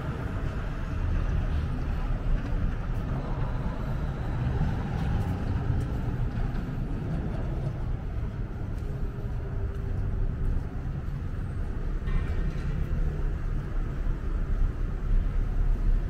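Downtown street ambience: a steady low rumble of road traffic.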